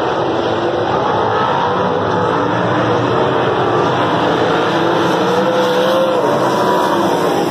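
A field of winged sprint cars racing on a dirt oval: many V8 engines running at once in a loud, continuous blare. Their pitches rise and fall as cars go through the turns, with one engine standing out about five seconds in.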